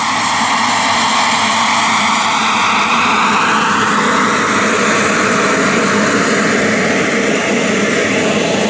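Frank VRaptor turbine of a 1:3 scale Messerschmitt P1110 model jet running: a loud, steady rushing roar with a whine that drifts slowly lower in pitch.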